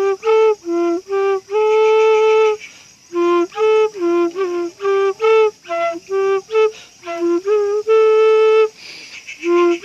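Bamboo flute (bansuri) playing quick, separate short notes that step up and down among three neighbouring notes, with a couple of longer held notes on the highest one and a short pause about nine seconds in. It is the beginner's 'sa re ga' practice exercise.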